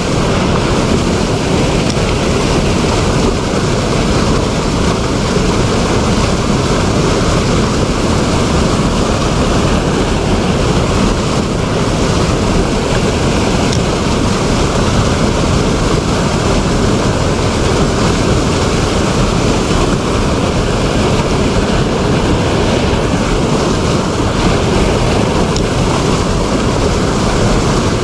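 Steady rush of a fast, muddy river churning over rapids as whitewater, loud and unbroken.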